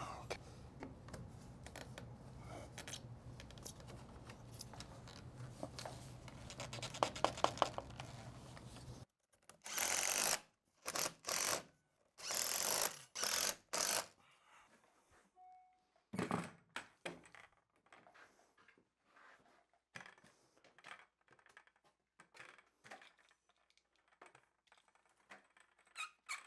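Hands-on plumbing work on plastic drain pipe and fittings: scattered clicks, taps and knocks over a low steady hum, with a quick run of clicks about seven seconds in. After an abrupt change comes a cluster of short, loud rasping noises, then more faint taps and clicks.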